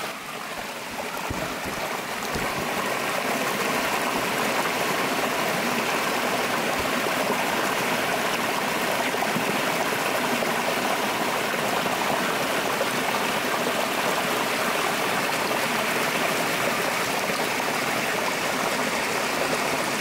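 Mountain stream water splashing and rushing over rocks in a small cascade: a steady rush that grows louder about two seconds in and then holds even.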